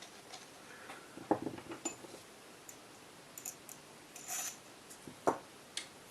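Small hard parts of an airsoft rifle's cylinder assembly handled and set down: scattered clicks and light knocks, the sharpest about a second in and near the end, with a brief rustle in between.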